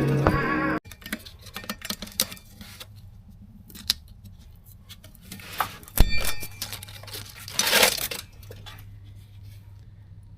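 Background music cuts off under a second in. Then come light clicks and rattles of metal tools and parts being handled, a loud metallic clank with a brief ring about six seconds in, and a short burst of noise just before eight seconds.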